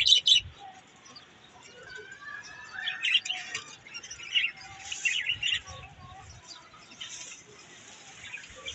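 Small cage birds, java sparrows and budgerigars, chirping and calling with scattered short high notes and a few rising whistles, plus some brief wing flutters. A short rustle of grass being pushed into a wire cage comes at the very start.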